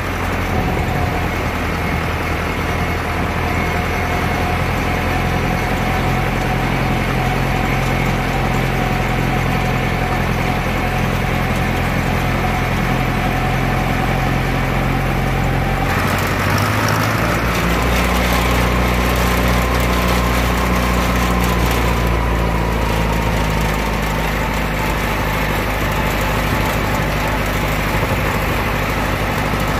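Vintage Ford farm tractor engine running steadily at road speed, heard from on the tractor. About halfway through the engine note shifts to a different pitch and more rushing noise comes in.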